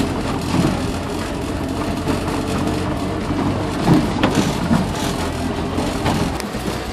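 Land Rover Series III engine running as it drives off road, with knocks and rattles from the vehicle jolting over rough ground, the sharpest a few seconds in.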